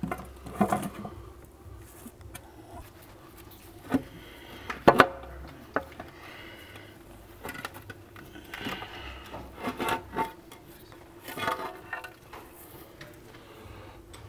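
Scattered clanks, knocks and scraping of metal as the BMW N52 oil pan is worked off its last bolt and lowered away from the engine block, with the sharpest knocks about four and five seconds in.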